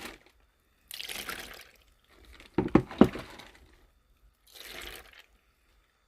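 Pickling brine pouring and splashing in three short spells, with a cluster of clunks about halfway through as the pickled cucumbers and their container are handled.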